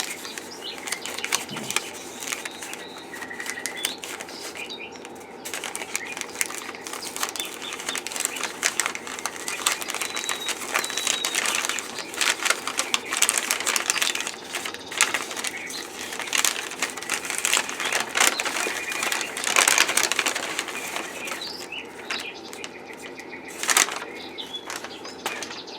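Packing material rustling and crinkling in irregular bursts with small clicks, as a mailed parcel is unwrapped by hand.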